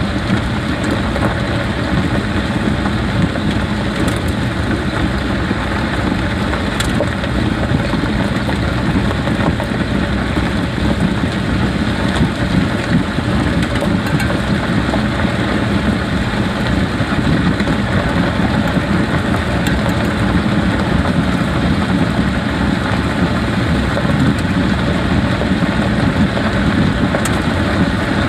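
Jeep driving slowly, a steady mix of tyre, road and drivetrain noise with a few faint clicks.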